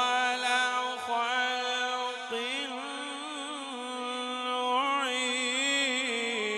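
A male qari reciting the Quran in melodic tilawat style into a microphone. A single voice draws out the verse in long held notes, broken by quick wavering ornamental runs.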